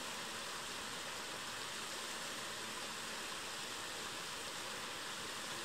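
Steady rushing of water spilling over a small concrete erosion-control (sabo) dam into the stream below, an even hiss without a rhythm, cutting off suddenly near the end.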